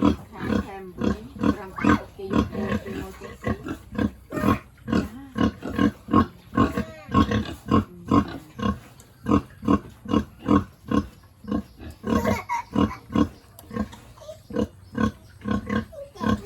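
Pigs grunting: many short overlapping grunts, several a second, with a few higher calls among them.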